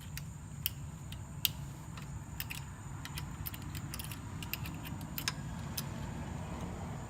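Scattered light metallic clicks and clinks as a motorcycle foot peg, its return spring and pivot bolt are worked into the peg bracket by hand.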